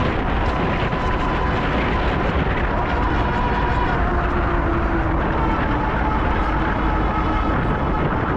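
Steady vehicle noise: a low rumble with a faint whine that drifts slowly in pitch.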